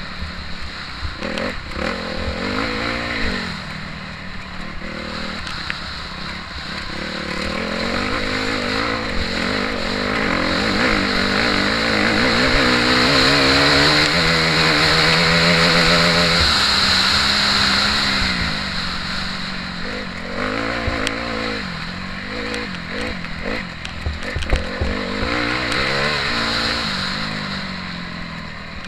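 Motocross bike engine heard from on board, revving up and down as the rider works the throttle and gears, with a long sustained pull at high revs in the middle. A few sharp knocks from the bike over the rough track.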